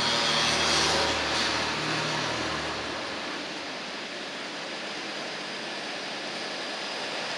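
City street traffic: a vehicle engine's low hum fades out about three seconds in, leaving a steady hiss of traffic.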